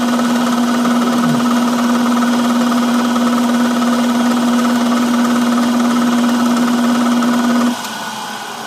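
Power machine's electric motor running at a steady speed with a constant hum, switched off near the end so the hum cuts out suddenly.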